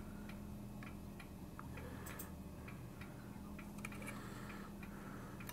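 Faint light clicks, scattered a fraction of a second to about a second apart, over a low steady hum.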